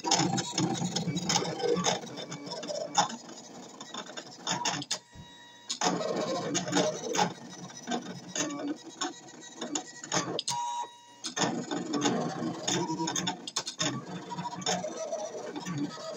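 Brother ScanNCut CM350 electronic cutting machine cutting a stencil: its motors whir and click in short, uneven runs as the blade carriage and mat move back and forth, with brief pauses about five seconds in and near eleven seconds.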